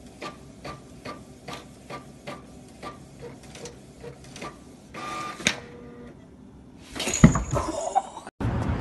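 Printer working: a steady series of clicks about two and a half a second, then a short louder mechanical whir, then a sudden loud clatter near the end.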